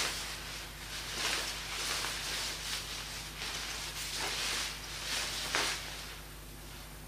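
Fire in a wood-burning stove crackling and hissing in irregular surges, about once or twice a second, dying down near the end, over a steady low hum.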